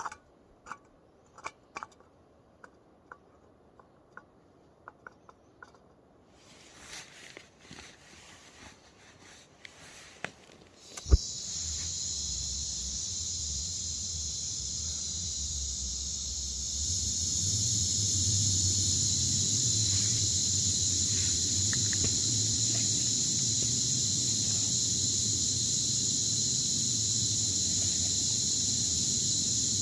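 Small backpacking gas stove lit with a sharp click about a third of the way in, then burning with a steady hiss and a low roar that grows louder a few seconds later. Before that, faint clicks of gear being handled.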